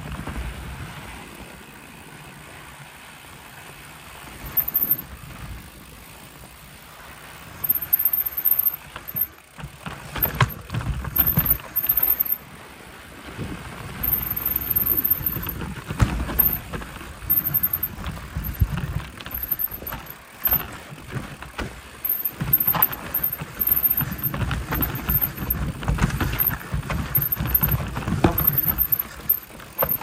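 Mountain bike riding over a rough dirt trail: wind rumble on the microphone, then, from about eight seconds in, irregular loud bursts of rattling and knocking as the bike bounces over rocks and roots.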